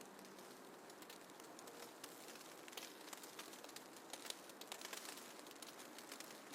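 Faint snowfall ambience: a soft, steady hiss peppered with light, scattered ticks and patters.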